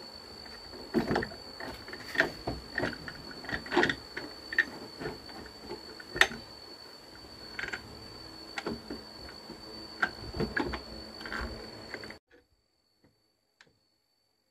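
Irregular clicks and sharp knocks of an electric motor being shifted and fitted by hand into a wooden machine frame, about a dozen louder knocks spread out, over a faint steady high whine. Both stop abruptly about twelve seconds in, leaving near silence.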